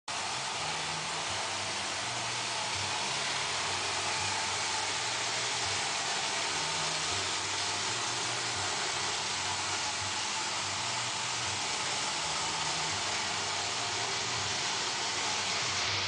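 iRobot Roomba robot vacuum running over a tile floor: a steady whirring hiss from its vacuum and brush motors, with a low hum that comes and goes as it drives.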